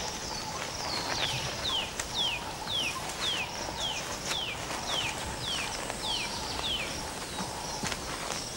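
An animal calling: a series of about a dozen short, high whistles, each falling in pitch, repeated evenly about twice a second and stopping about a second before the end.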